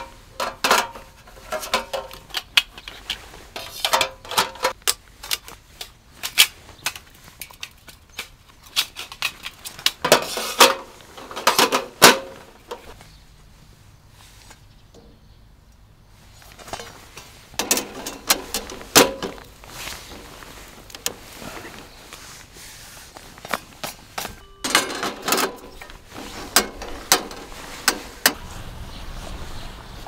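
Stainless-steel panels, mesh walls and a perforated grate plate of a folding fire pit clanking and clinking as they are handled and fitted together: scattered sharp metal knocks with short ringing, in clusters, with a quieter lull about halfway through.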